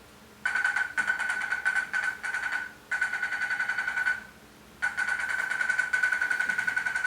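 Rapid electronic trilling beep, like a phone ringer, sounding in three long bursts with short gaps between them.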